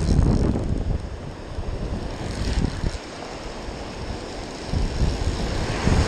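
Wind buffeting an action camera's microphone, a low rumble loudest in the first second, over surf washing onto the beach.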